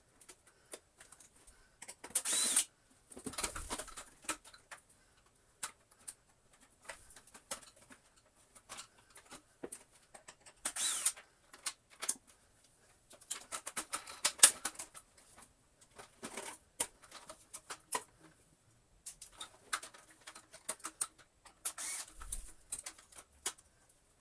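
Irregular small clicks, taps and short scrapes of hard plastic parts of a Dyson DC25 vacuum floor head being handled and taken apart by hand, with a few brief louder scraping rustles.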